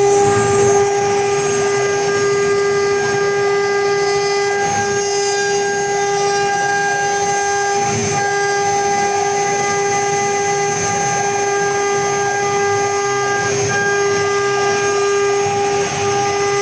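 Spindles of a four-spindle CNC router running at speed: a steady, high-pitched whine held on one pitch with overtones, over a light mechanical hiss.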